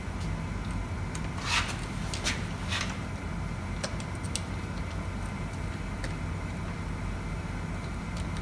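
A handful of short clicks and scrapes from metal fasteners being handled as a motorcycle clamp is mounted, over a steady low hum.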